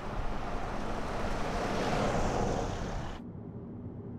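A car passing on a brick-paved road, its tyre and engine noise swelling to a peak about two seconds in and then easing. Just after three seconds this cuts to the low, steady road hum inside a moving car's cabin.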